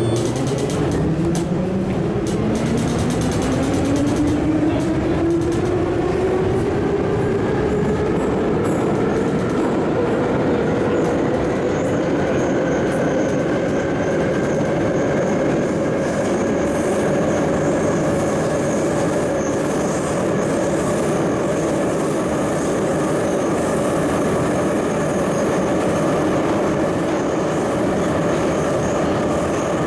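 Metro train pulling out of a station, heard from inside the car: the traction motor whine rises in pitch as it accelerates over the first ten seconds or so, then holds steady at running speed over the constant noise of wheels on track.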